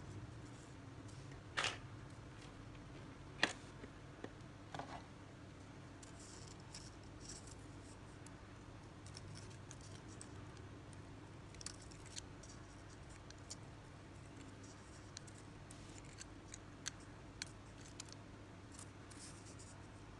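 Small scissors snipping at the thread and line of a handmade multi-hook fishing rig: a few sharp snips in the first five seconds, then scattered light clicks and ticks as the rig is handled.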